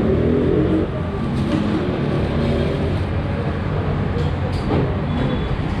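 A steady low rumble of background noise, with a few faint clicks over it.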